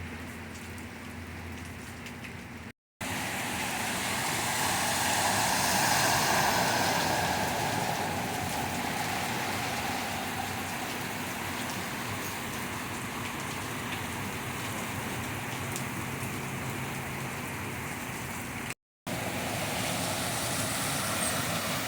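Steady rain falling, with a car passing through flooded street water about four to eight seconds in, its tyres swishing and splashing as the sound swells and fades.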